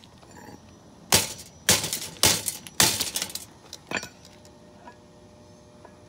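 Four hard blows land on a Lasko box fan's plastic housing and grille, about half a second apart, each followed by a short crackle of breaking plastic. A lighter fifth hit comes about a second later.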